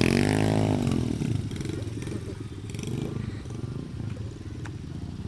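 ATV engine revving up and dropping back in the first second, then running at low revs with a steady rumble.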